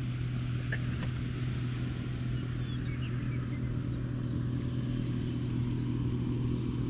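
A steady low mechanical hum, with a few faint bird chirps about two to three seconds in.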